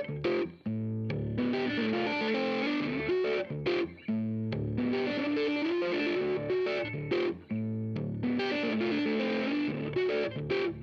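Music led by an electric guitar with distortion, playing a phrase that repeats about every three and a half seconds.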